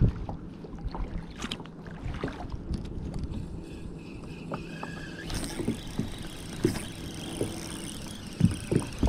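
Scattered knocks and bumps of gear against a fishing kayak over a steady low rumble of wind and water, with a hiss coming in about halfway through.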